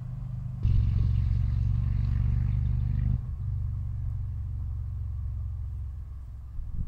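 Tractor engine running steadily with a low drone, growing louder about a second in and easing off again after about three seconds.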